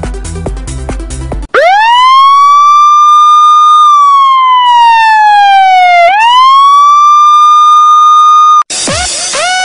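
Electronic music with a steady beat, cut off about a second and a half in by a loud siren sound effect: one wailing tone that rises and holds, slowly falls, rises again and holds, then stops abruptly near the end, where music with falling glides takes over.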